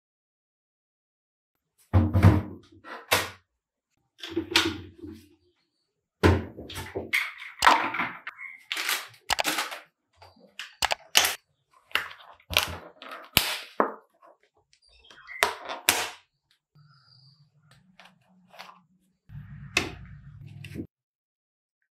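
Kitchen handling sounds while ice-cream milkshake ingredients are prepared: a run of irregular thunks and knocks as plastic packaging, the ice-cream tub and the blender parts are handled and set down on a wooden table, with a spoon scooping ice cream into the plastic blender jar near the end. The sounds begin about two seconds in.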